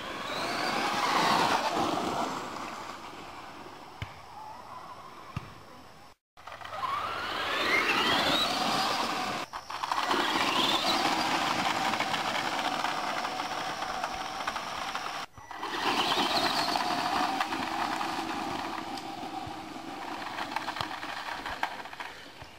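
Electric motors of remote-control trucks whining and rising in pitch as they accelerate, several times over, with the crunch of tyres on gravel. The sound cuts off suddenly a few times between takes.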